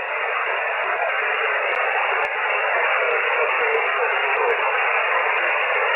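Shortwave single-sideband receiver hiss: a steady band noise held within the narrow voice passband, with weak, barely readable voices of distant stations faintly in it.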